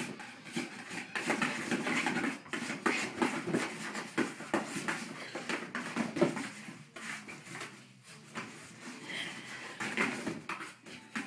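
Small dog scrabbling inside a cardboard box after a toy, paws scratching and knocking against the cardboard in an irregular run of scrapes, rustles and knocks.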